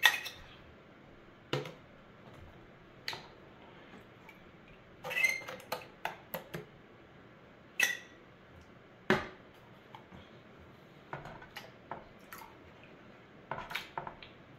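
A plastic gold pan and a hand magnet being handled over a water tub: scattered short, sharp clicks and knocks, about a dozen, spaced a second or more apart.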